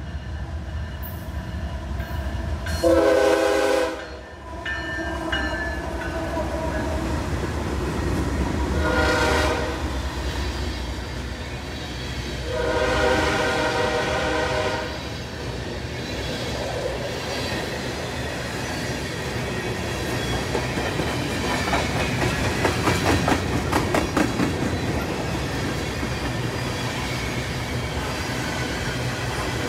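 A diesel freight locomotive's horn blows three times over the rumble of the approaching train. The first blast, about 3 s in, is the loudest; a short one follows near 9 s and a longer one near 13 s. After that comes a steady clatter and clicking of wheels as the train rolls by.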